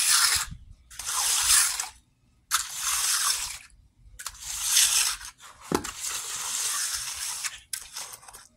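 Steel hand trowel scraping across the wet surface of a freshly poured concrete slab while it is being finished, in a series of strokes about a second long with short pauses between them.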